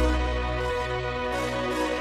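Background music: sustained, slow instrumental music with long held notes over a deep bass.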